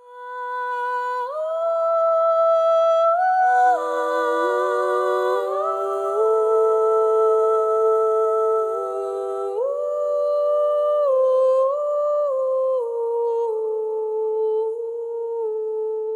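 Sampled wordless vocal sound from the Voximotive pack in Audiomodern's Soundbox sampler, played on a keyboard: several layered hummed voices holding long notes and sliding smoothly from one pitch to the next. It fades in at the start, and a breathy, airy layer sits over it for a few seconds in the middle.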